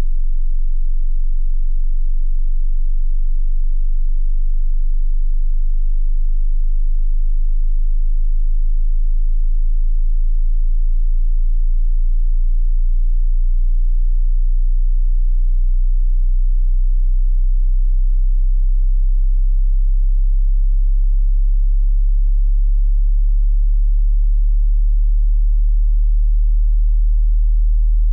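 Pure sine test tone at a very low pitch, below about 60 Hz, from the bottom of a 20 Hz to 20,000 Hz hearing-test frequency sweep; it holds an even level throughout.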